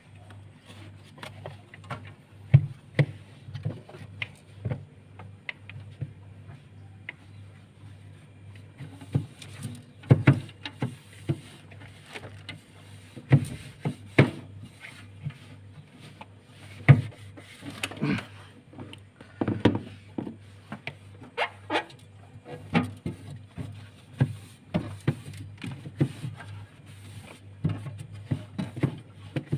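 Irregular knocks, taps and rubbing, like parts being handled and wiped during refrigerator cleaning, over a steady low hum.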